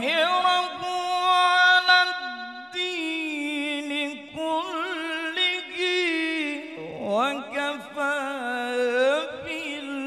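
A man's solo melodic Qur'an recitation (tajweed) through a microphone, drawing out long, ornamented notes that waver and slide in pitch. The words "wa kafā" come near the end.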